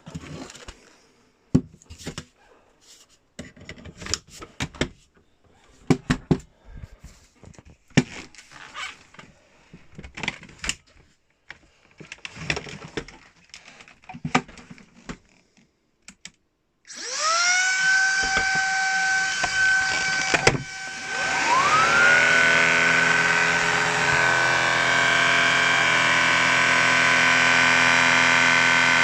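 Shark IZ251UKT DuoClean cordless stick vacuum: scattered plastic clicks and knocks as it is handled and fitted together, then its motor is switched on and spins up with a rising whine that levels off. It stops briefly and starts again, then runs steadily.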